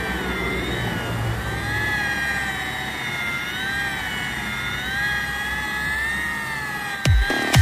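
Electric rotary car polisher running with a foam pad on the paintwork, its motor whine wavering up and down in pitch as the load changes. About seven seconds in, a dance-music beat with heavy kick drums comes in.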